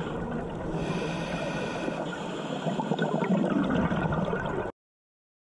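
Muffled underwater water noise picked up by a GoPro camera sealed in its housing, growing louder and rougher in the second half and cutting off suddenly near the end.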